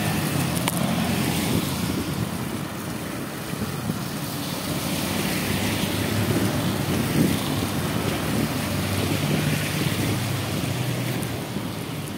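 A road vehicle on the move: a steady low engine rumble under heavy wind noise buffeting the microphone.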